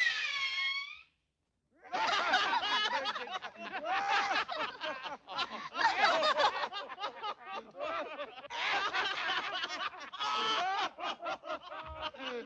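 Cartoon voices laughing in rapid, continuous snickering giggles. The laughter starts after a short pause about two seconds in, following a falling vocal cry that ends about a second in.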